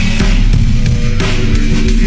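Background rock music with distorted electric guitar, loud and continuous.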